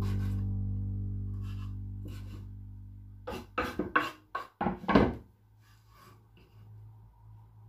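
A knife chopping on a wooden cutting board: a few faint taps, then a quick run of sharp knocks between about three and five seconds in. Background music holds a chord that fades out over the first few seconds.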